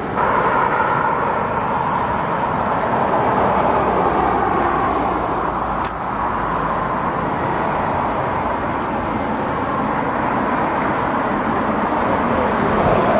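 Steady noise of road traffic on a city street, with a brief click about six seconds in.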